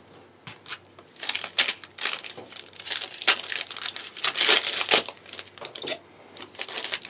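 Foil trading-card booster pack crinkling and tearing as it is handled and ripped open, a dense run of irregular crackles starting about a second in and easing off after about five seconds into a few lighter rustles.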